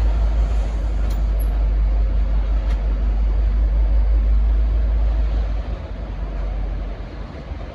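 Deep, steady rumble of a V/Line N class diesel-electric locomotive moving off, dropping away about five and a half seconds in and again near the end as it recedes.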